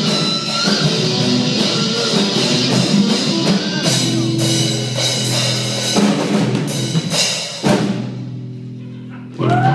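Live rock band of electric guitar, bass and drum kit playing the close of a song: a few final drum and cymbal hits, then the last chord ringing out and fading. The audience breaks into cheering and whoops just before the end.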